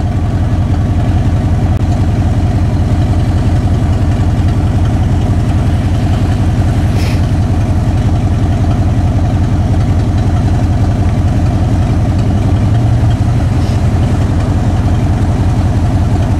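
Ford F-150 pickup's engine idling steadily, with an even low hum throughout.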